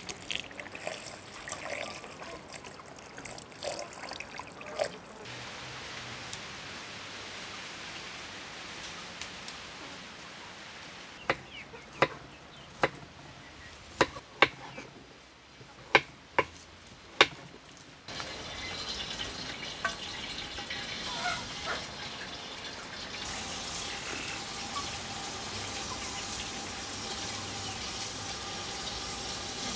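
Water poured in a thin stream splashing over raw chicken pieces being rinsed by hand in an enamel basin. In the middle come about eight sharp knocks spread over some six seconds. From a little past the halfway mark, chicken pieces fry in hot oil in a metal pot with a steady sizzle.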